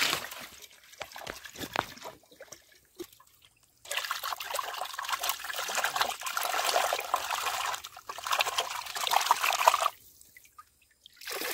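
Chicken wing pieces being washed by hand in a steel bowl of river water: water sloshing and splashing as the hand stirs and rubs the meat. A few separate splashes at first, then about six seconds of continuous sloshing, which stops briefly near the end and starts again.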